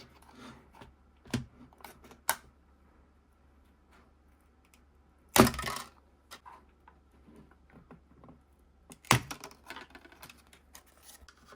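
Scattered small plastic clicks and taps from prying the fragile gauge dials and clips of a Sea-Doo gauge cluster apart, with two louder sharp clacks about five and a half and nine seconds in.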